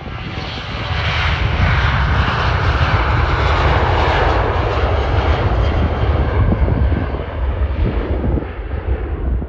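Boeing 737-800's twin CFM56-7B turbofan engines at takeoff thrust as the airliner rolls down the runway and lifts off: a loud jet roar over a deep rumble, swelling about a second in and easing after about seven seconds.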